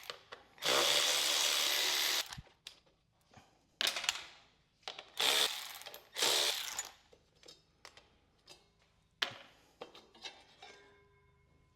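Ratchet wrench with an 8 mm socket being worked to back out bolts on a Kohler Command engine's housing, with about three spells of rapid ratcheting and then scattered clicks and knocks as parts are handled.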